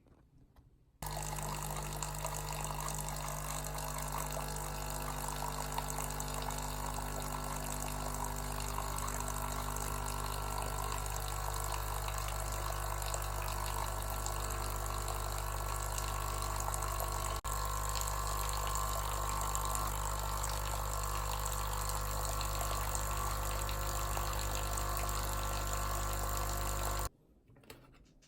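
illy Y3.2 capsule espresso machine's pump running, pushing water through with a steady hum and water hiss. It starts suddenly about a second in and cuts off sharply near the end.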